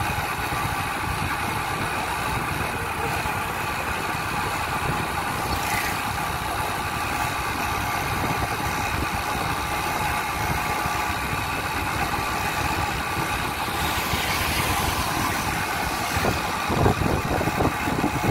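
Engine of the vehicle carrying the camera running steadily at cruising speed along a paved road, with road and wind noise. A few thumps near the end.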